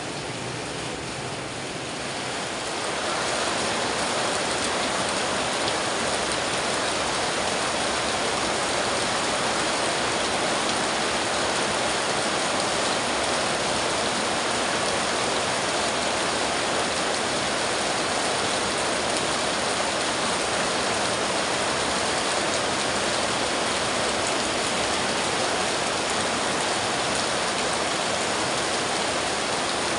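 Heavy rain falling steadily on a corrugated metal roof, with runoff pouring off the roof edge. It gets louder about three seconds in and then holds steady.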